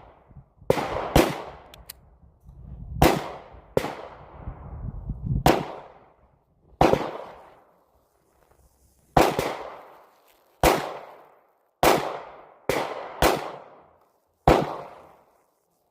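About a dozen gunshots fired one at a time at a slow, uneven pace, roughly one to two seconds apart. Each crack is followed by a short echoing tail.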